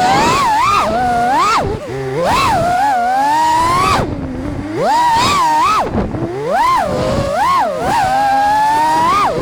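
5-inch FPV freestyle quadcopter with Ethix V3 brushless motors whining in flight, the pitch swooping up and down again and again as the throttle is punched and eased off.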